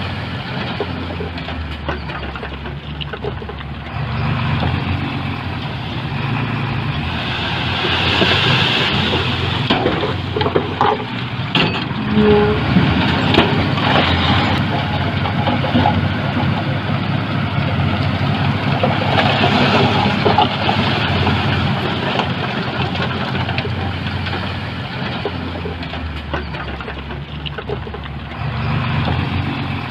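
Heavy diesel earthmoving machinery, a bulldozer and dump truck, running with a steady engine drone that grows louder for a stretch in the middle, with scattered clanks and rattles.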